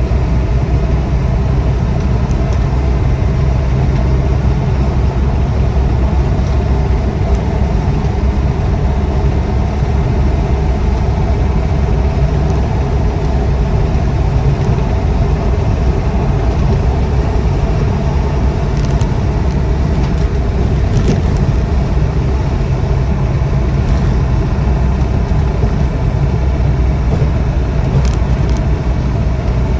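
Inside the cab of a Land Rover Defender 90 300Tdi pickup on the move: the 2.5-litre four-cylinder turbodiesel running steadily at cruise, with road and wind noise.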